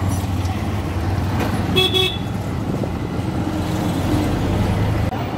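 Auto-rickshaw engine running with a steady low drone in street traffic, heard from inside the open cab. About two seconds in, a vehicle horn gives two short toots.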